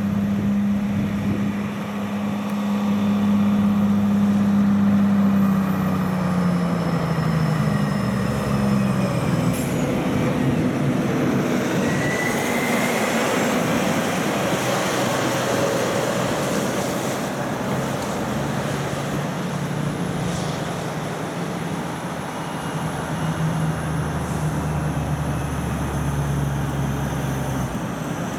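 Heavy diesel trucks passing on a winding highway. Their engine note drops in steps several seconds in, and tyre and road noise swells about halfway through as a cab-over truck goes by close.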